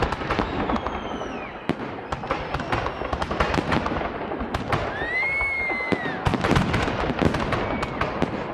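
Festive fireworks salute going off: a rapid series of bangs and crackling bursts, with a whistling tone that rises and then falls about five seconds in.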